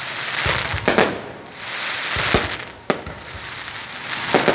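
Aerial fireworks going off: a series of sharp bangs roughly a second apart, the last two close together near the end, over a continuous crackle and hiss of bursting shells.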